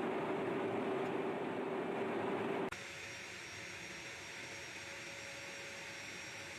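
Jet aircraft engine running steadily, a rushing noise with a held tone. About two and a half seconds in it cuts abruptly to a quieter jet sound with a higher steady whine.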